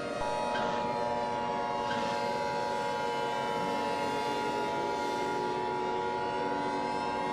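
Emergency Alert System attention signal: a steady two-tone alarm, the 853 and 960 Hz pair, starting just after the beginning and held throughout. Other lower tones sound beneath it.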